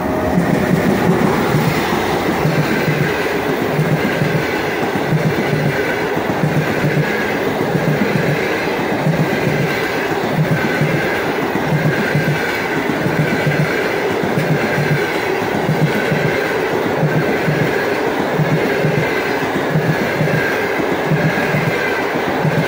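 Passenger train of an EP1 electric locomotive rolling past close by: the locomotive going by at the start, then the coaches, in a loud steady rumble with a regular clatter of wheels on the rails.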